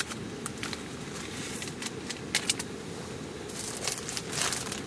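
Scattered light clicks and taps, then a denser patch of rustling and crinkling near the end, over steady low background noise.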